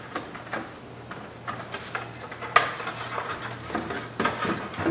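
Hard plastic door trim panel and switch housings clicking and rattling as they are handled and pushed through the panel, with scattered sharp clicks and one louder snap about two and a half seconds in.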